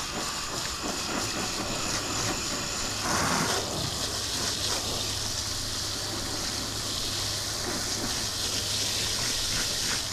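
Garden hose spray nozzle spraying water onto compressed coconut coir blocks in a plastic tub: a steady hiss of spray hitting the coir and the tub, soaking the bricks to break them down into growing medium.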